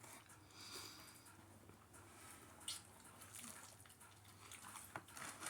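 Near silence: quiet room tone with a few faint, brief clicks, one slightly more distinct about three seconds in.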